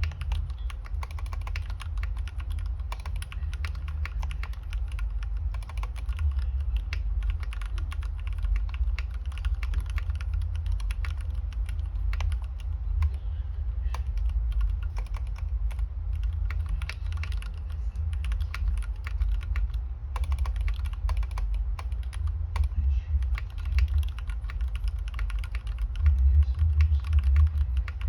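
Continuous fast typing on a 60% mechanical keyboard with lubed Gateron Yellow linear switches, an aluminium plate and case, and Cherry-profile keycaps: a dense, irregular stream of keystroke clacks, over a steady low hum.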